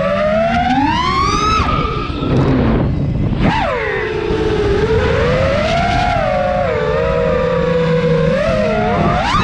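FPV quadcopter's brushless motors and propellers whining, the pitch rising and falling with the throttle. About two and a half seconds in, the throttle is chopped and the whine sags, then it jumps back up sharply about three and a half seconds in. A rush of air runs under it.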